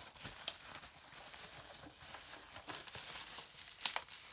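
Plastic bubble wrap crinkling and rustling as it is handled and pulled loose from a boxed mirror, with scattered crackles and two sharp snaps close together near the end.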